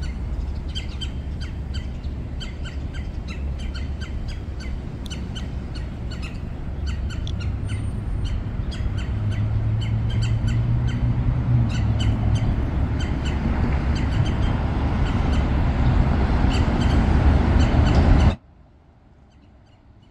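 Birds chirping over a low traffic rumble that swells steadily louder, with a steady low hum in the middle; near the end the sound cuts off abruptly to a much quieter background.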